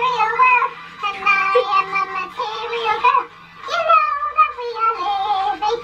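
A person singing in short phrases along with music.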